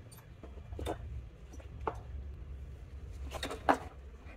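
A few short plastic clicks and knocks as an ignition coil is pushed onto an inline spark tester, the loudest a little after three and a half seconds in, over a low steady hum.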